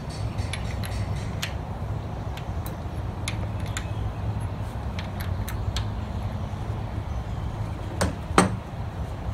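Scattered metallic clicks and taps of a wrench and socket working a 24 mm cam sprocket bolt on a Nissan 240SX engine, with two louder knocks about eight seconds in, over a steady low hum.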